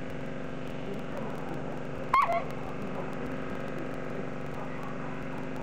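A dog gives one short, high yelp about two seconds in, over a steady low hum.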